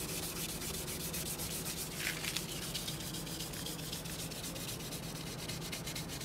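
Hand wet-sanding of a plastic car headlight lens with 600-grit sandpaper: quick, even back-and-forth strokes making a continuous rasping hiss as the yellowed, oxidised surface layer is cut away.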